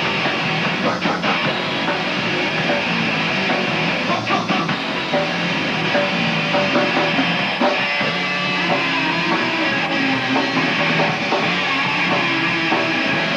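Rock band playing live: electric guitar and drum kit.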